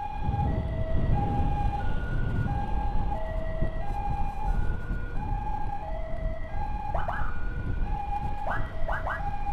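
Emergency siren sounding a steady pattern of held tones that step between a higher and a lower pitch about every half second, over a low rumble of wind and motorcycle engine. Near the end, several short rising chirps join in.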